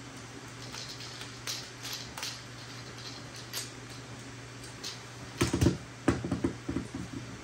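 Small metal clicks and ticks of a screwdriver turning screws into a metal hard-drive bracket. About five and a half seconds in comes a louder cluster of knocks and rattles as the screwdriver and metal parts are handled on the table. A steady low hum runs underneath.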